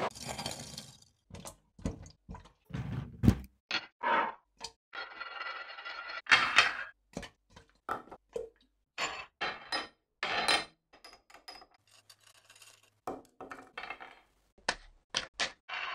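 A quick series of short, separate clicks and clinks, with a longer hiss about five to seven seconds in.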